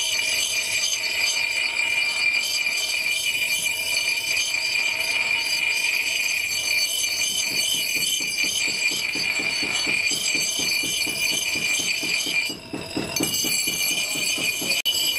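Steel axe head being ground on a spinning bench grinder wheel: a steady, high-pitched grinding whine with a ringing edge. It breaks off briefly about twelve seconds in, then resumes.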